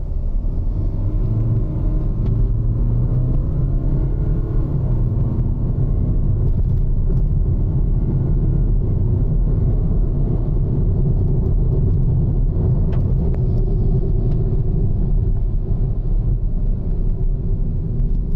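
Hyundai Verna diesel automatic accelerating hard from a standstill, heard from inside the cabin: a steady loud rumble with the engine note climbing through the gears. After it passes 100 km/h the car slows down, off the throttle.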